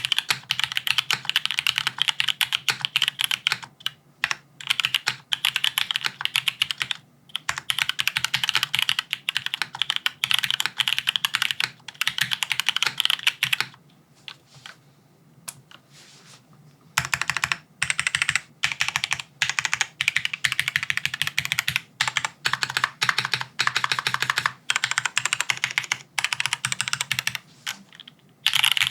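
Rapid typing on a Haven65 XT gasket-mounted mechanical keyboard with an aluminium plate, no foam dampening, linear switches and PBT keycaps. It comes in runs of fast keystrokes broken by short pauses, with a near-silent break of about three seconds midway that holds a few light taps.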